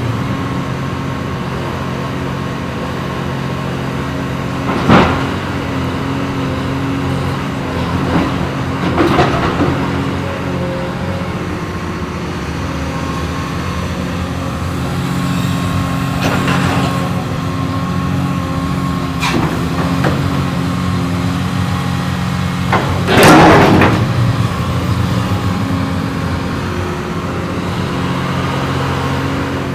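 Caterpillar hydraulic excavator's diesel engine running steadily as the machine works. Several sharp knocks and clanks cut across it, with the loudest and longest clatter about three-quarters of the way through.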